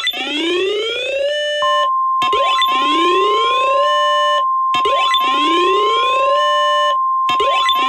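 Synthesized emergency alert tones: a cluster of rising electronic sweeps that repeats about every two and a half seconds, each ending in a brief held chord and a short break. About one and a half seconds in, a single steady alarm tone of the NOAA Weather Radio warning kind joins and holds under the sweeps.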